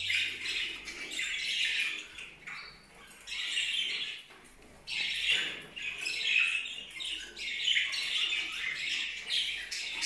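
Budgerigars chattering and squawking, in stretches of busy calls that pause briefly twice.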